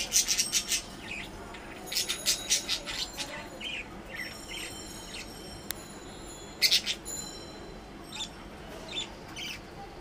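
Budgerigars chirping and chattering in quick bursts of short high calls, loudest at the start, about two seconds in and again near seven seconds, with softer chirps in between.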